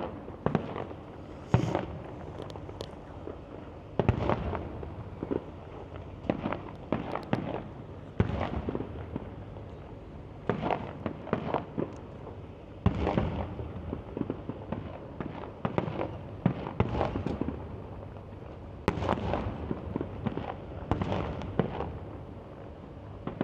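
Fireworks display: aerial shells bursting in irregular bangs, some single and some in quick clusters, each trailing off in a short echo, over a steady background noise.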